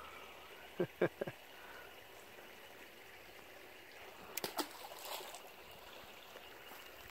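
Shallow creek water trickling faintly and steadily, broken by a few short sharp clicks and knocks: three about a second in and a small cluster a little after four seconds in.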